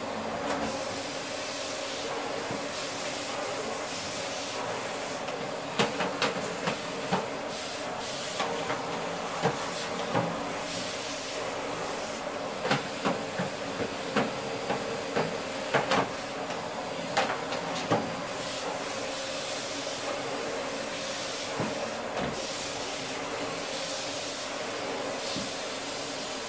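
Canister vacuum cleaner running steadily, with a scattering of sharp clicks and knocks in the middle stretch as the wand and nozzle are pushed about the floor.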